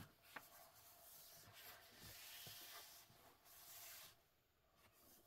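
Near silence with a faint rustle of a hand sliding over the paper pages of an open book, after a soft paper click at the start.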